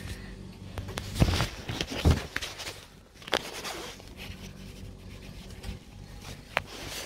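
Handling noise from a phone being moved about: rustling and scraping, with two bumps in the first couple of seconds and a few sharp clicks, over a faint steady low hum.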